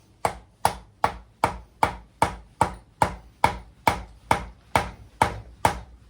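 Steady series of about fifteen hammer blows on a wooden block, roughly two and a half a second, driving the seized pistons of a Kubota V2203 diesel engine to free them.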